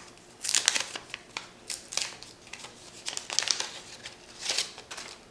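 A wax pack of trading cards being torn open by hand: the wax paper wrapper crinkling and tearing in several short crackly bursts.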